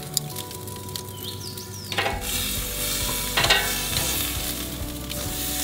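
Raw chicken breast sizzling on a hot charcoal grill grate, the hiss starting about two seconds in as it is pressed down with tongs. A short clack of the metal tongs comes about halfway through.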